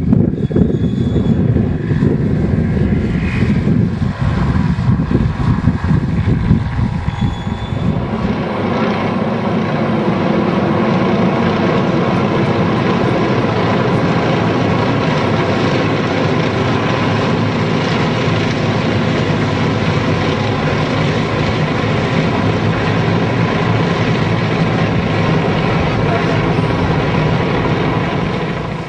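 Propeller aircraft engines running loudly at an airshow, with gusts of wind buffeting the microphone for about the first eight seconds, then a steady engine drone.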